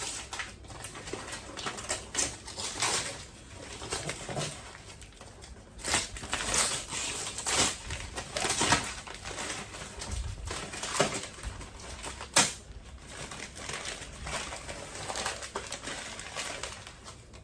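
Toy packaging being handled and opened: irregular rustling, scraping and clicking.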